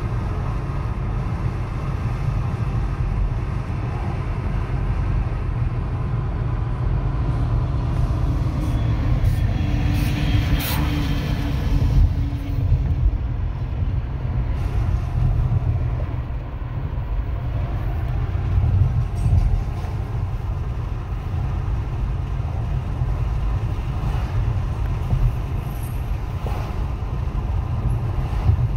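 Steady low rumble of a moving car, road and engine noise, heard from inside its cabin.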